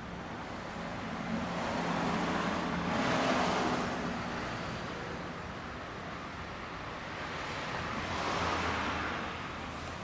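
Passing road traffic: one vehicle goes by about two to four seconds in and another about eight seconds in, each swelling and fading, over a faint steady low hum.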